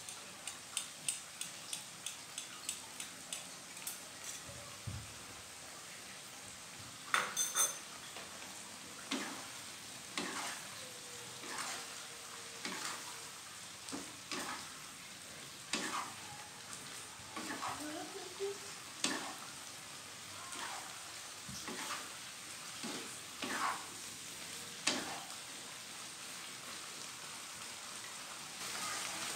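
Wooden spatula stirring and scraping broccoli, carrot and shrimp in a non-stick wok, over a soft steady sizzle of the cornstarch-thickened sauce frying. It gives quick regular taps at first, the loudest clatter about seven seconds in, then slower irregular scrapes.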